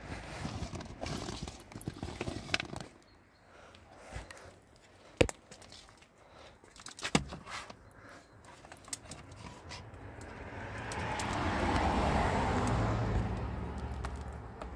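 Clicks and small rattles of an e-bike charger plug and cable being handled, the sharpest click about five seconds in. Near the end a rushing noise swells and fades over a few seconds.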